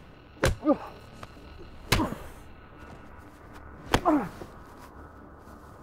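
Three punches landing about two seconds apart, each followed by a pained grunt that falls in pitch.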